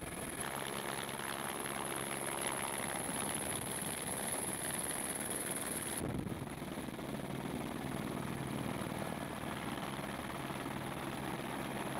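Steady helicopter noise heard from inside the cabin with the door open: a low rotor and engine drone under rushing air. A thin high whine in the first half stops abruptly about halfway through.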